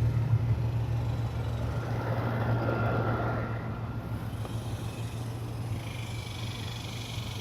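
Steady low hum of an outdoor air conditioner unit running, with a rushing noise swelling and fading about two to four seconds in.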